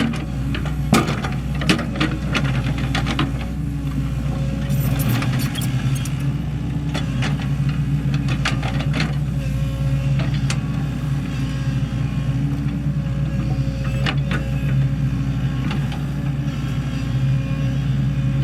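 Sany SY75C excavator's diesel engine running steadily under working load, with scattered sharp clanks and knocks, most of them in the first few seconds.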